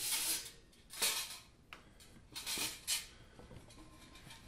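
Shiny metal chimney pipe sections being drawn out of a sheet-metal camp stove body, scraping and knocking against the stove and each other: a handful of short metallic knocks and scrapes, the strongest about a second in and near three seconds.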